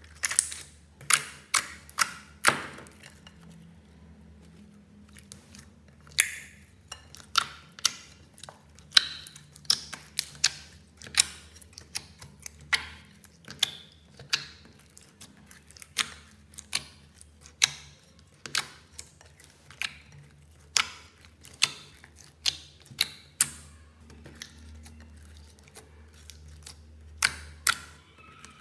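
Clear slime being pressed and poked by hand in a glass bowl, giving a string of sharp, sticky pops and clicks, irregular, about one or two a second.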